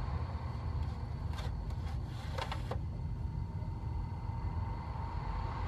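A steady low background hum, with a few faint plastic scrapes and clicks between about one and a half and three seconds in as the pleated filter is slid back into a nail dust collector.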